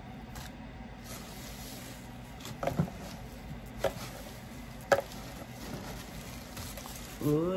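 Hands rummaging through crinkle-cut paper shred packing filler in a cardboard box, with a few sharp crinkles about three, four and five seconds in over a steady low hum.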